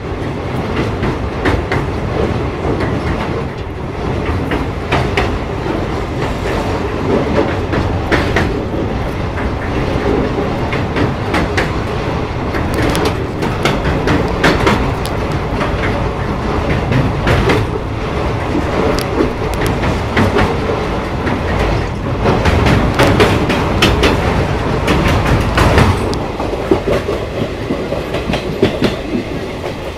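Indian Railways express train running at speed: a steady rumble with the wheels clattering over rail joints, louder for a few seconds about three quarters of the way through.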